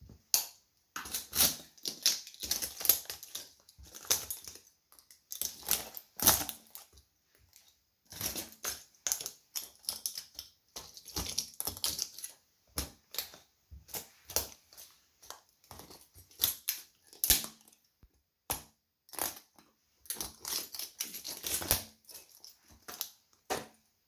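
Broken plastic toy-train pieces crackling and snapping under a Nike Air Force 1 sneaker's sole as it treads and grinds on the pile, in bursts of rapid clicks with short pauses between them.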